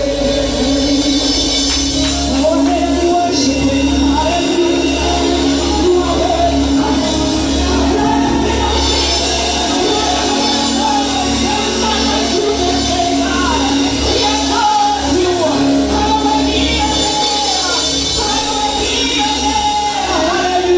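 Worship song: voices singing a melody over instrumental accompaniment, steady and loud throughout.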